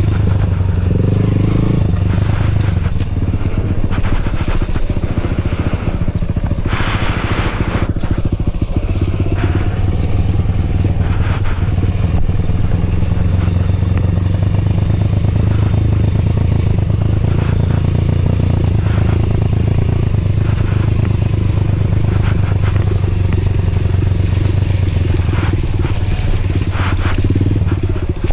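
Dirt bike engine running steadily while being ridden along a muddy trail, with a brief rushing noise about seven seconds in.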